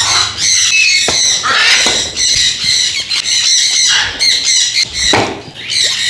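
Many parrots squawking and screeching at once, a dense run of shrill overlapping calls, with a dull knock about five seconds in.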